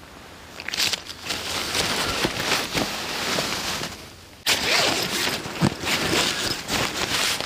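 Nylon tent fabric rustling and scraping as gloved hands pull a tent door open, with a short lull about four seconds in before it starts again abruptly.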